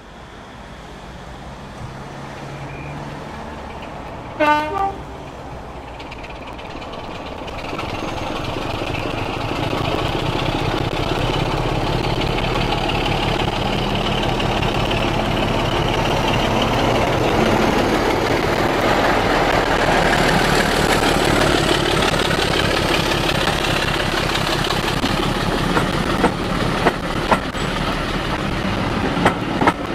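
A diesel train horn sounds a short blast about four seconds in. Then a train approaches and grows steadily louder, its engine and wheels rumbling, with sharp wheel clicks over rail joints near the end.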